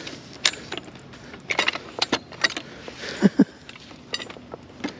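Farm jack being worked by its handle: irregular metallic clicks and clanks from the ratchet mechanism, with the lifting chain jangling. Two duller knocks come just past three seconds in.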